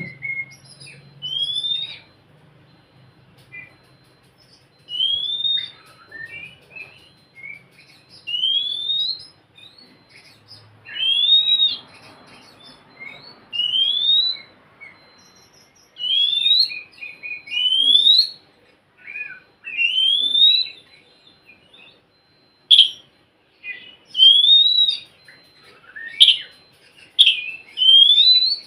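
Oriental magpie-robin (kacer) singing: a series of clear, rising whistled phrases, roughly one every two to three seconds, with short chirps and notes in between.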